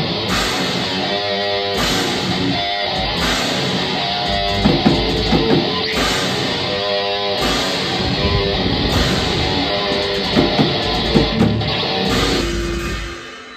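Black metal band playing live: loud distorted electric guitars over bass and drums in a riff that repeats about every second and a half, fading out about a second before the end.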